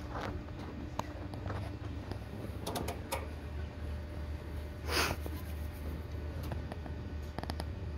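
Ambience in the stands: a steady low rumble with scattered small clicks and rustles, and a short breathy burst about five seconds in, likely a sniff or cough from a nearby spectator.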